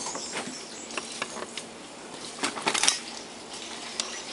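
Small tools and parts being handled during a repair: scattered light clicks and taps, with a short run of sharper clicks about two and a half seconds in.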